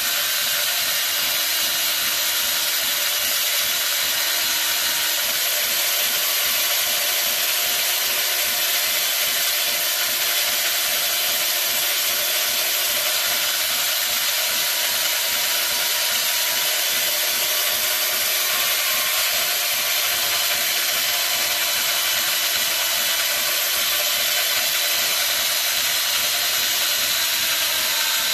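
A 220 V electric chainsaw running steadily while cutting into a stone block, a continuous whine with the chain grinding through the stone.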